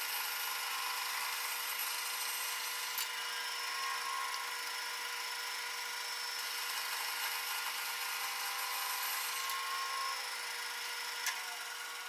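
Band saw cutting through a block of wood, played back at four times normal speed: a steady sawing hiss with a steady tone under it. Two brief clicks come about three seconds in and near the end.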